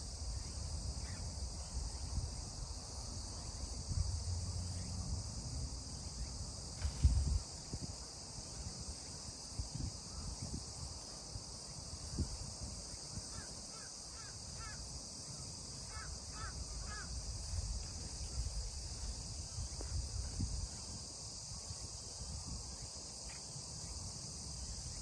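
Steady high-pitched chorus of crickets or other insects over a riverbank, with a low rumble of wind on the microphone that peaks in a gust about seven seconds in. Midway there are two short runs of bird calls, a few quick notes each.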